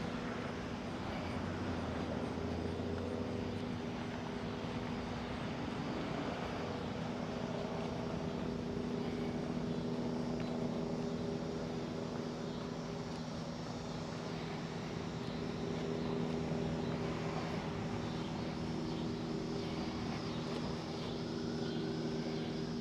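A steady low mechanical drone made of a few held tones that barely change, over an even wash of outdoor background noise.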